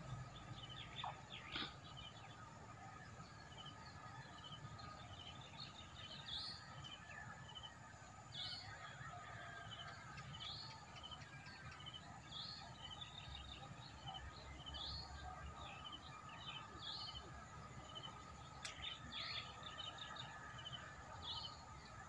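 Faint birds calling at dawn: one bird repeats a short rising call about every two seconds, with smaller chirps from other birds between, over a steady faint hum and a low rumble.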